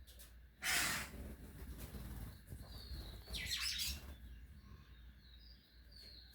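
Songbirds giving short high chirps, with a loud rustling burst about a second in and a harsher falling call or scuffle around three and a half seconds in.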